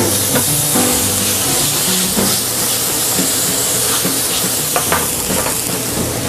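White wine splashed into a hot sauté pan of chopped mushroom and ham filling, sizzling and hissing steadily as the pan is tossed over the gas flame.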